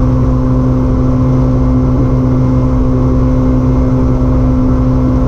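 Yamaha 1.8-liter supercharged SVHO engine of a jet-drive sport boat running flat out near its top speed of about 50 mph. It is a loud, steady drone with a rush of wind and water.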